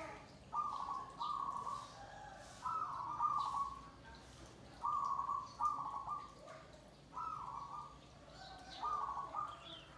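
Zebra doves (perkutut) cooing: short, repeated coo phrases that come every second or so, with a few faint, high chirps between them.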